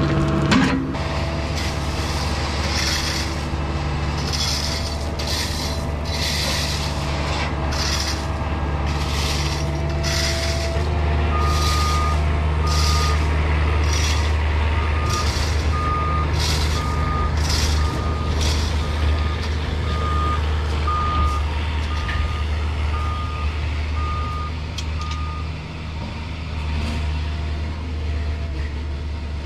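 Cat 304E2 mini excavator's diesel engine running steadily, with its back-up alarm beeping about once a second from roughly a third of the way in until near the end. Short hissing noises repeat about once a second over the first two-thirds.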